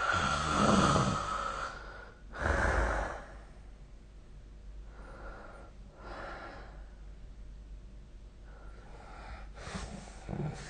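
A sleeping person snoring. A loud snore is followed by a loud breath about two and a half seconds in. Quieter breaths come around the middle, and another snore comes near the end.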